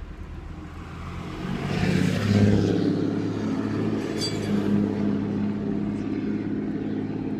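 1985 Chevy C10 pickup's engine, heard from inside the cab, gets louder about two seconds in as the truck accelerates, then holds a steady note as it pulls along.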